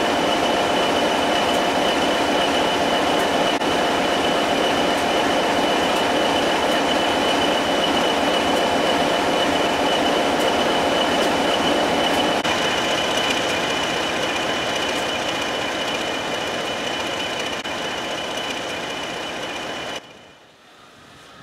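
Class 20 diesel-electric locomotive's English Electric eight-cylinder diesel engine running loudly and steadily close by, with a steady high whistle over it. It fades slowly in the later seconds, then cuts off near the end.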